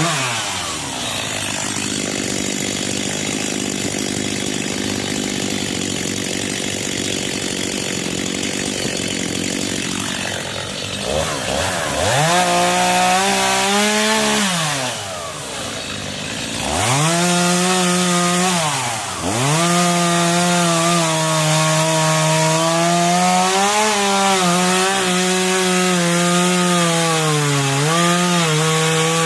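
Stihl two-stroke chainsaw cutting firewood. It runs low and rough for about the first ten seconds, then revs up and drops back twice, and from about seventeen seconds in holds at high revs with its pitch dipping now and then as the chain bites into the wood.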